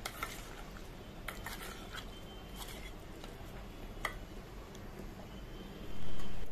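Mutton liver pieces being mixed in a spice marinade in a steel bowl: soft squishing with a few light clinks against the bowl, and a louder thump near the end.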